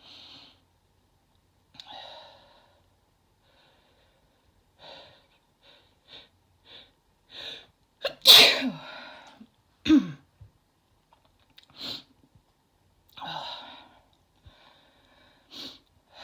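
A woman sneezing from chhinkni sneezing powder. A few breathy inhales and quickening catching breaths build to a loud sneeze about eight seconds in. A second sneeze follows about two seconds later, then heavy breaths.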